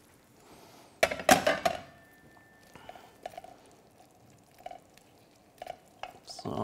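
Metal spoon and frying pan clattering as the pan of tofu in sauce is set on the hob and stirred. The loudest cluster of clinks comes about a second in, followed by a faint steady high tone and scattered light taps of the spoon against the pan.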